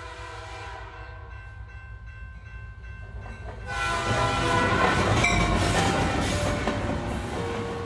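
Train horn sounding a long held chord over a low rumble, then a train passing close: a loud rush of noise with rattling wheels builds about four seconds in and slowly eases off.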